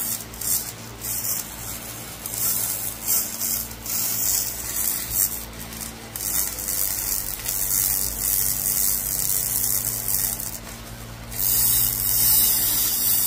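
Laser cleaner ablating oil and grime off a Porsche steel connecting rod: a harsh, uneven hiss that swells and fades as the beam sweeps, louder near the end, over a steady machine hum. The hiss means the laser is still burning debris off the surface; it goes quiet once the metal is clean.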